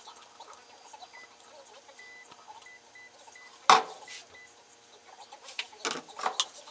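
Sped-up handling sounds at a soap mold: one sharp knock a little past halfway, then a cluster of smaller clicks and knocks near the end, with faint short high beeps earlier on.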